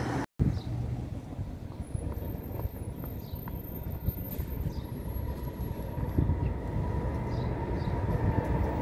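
Tram running with a steady low rumble and a faint whine that grows toward the end. The sound cuts out for a moment just after the start.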